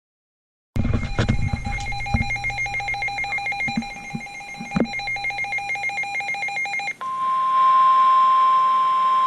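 NOAA Weather Radio alerting for a warning: a fast warbling two-tone alarm with a few knocks, then, about two-thirds of the way through, a steady single-pitched alarm tone. That tone is the warning alarm that comes just before the warning message is read.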